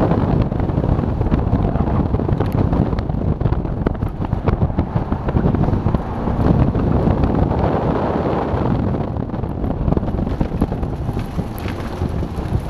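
Car engine pulling hard at full throttle in the middle of its rev range, heard from inside the car with heavy wind noise on the microphone. Near the end the throttle is lifted and the engine drops toward idle as the car slows.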